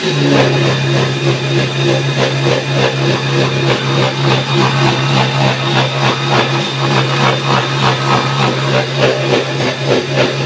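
Electric mixer grinder (mixie) running steadily with a strong motor hum, blending mango shake after extra milk has been added to thin it.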